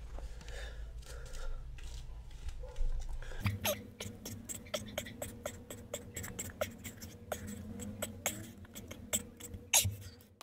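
A person doing push-ups close to the microphone: a run of short, sharp breath puffs and clicks, about two a second, over a steady low hum that sets in about three and a half seconds in.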